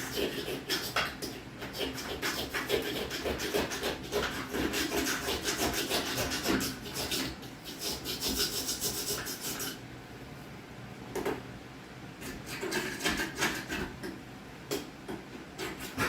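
Stainless steel caulking tool scraping and rubbing at caulk in rapid scratchy strokes, working it off the surface; the scraping eases for a couple of seconds about ten seconds in, then resumes.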